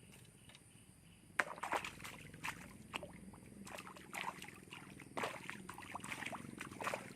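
Water splashing and sloshing in quick, irregular bursts that start about a second and a half in, over a faint steady background hum.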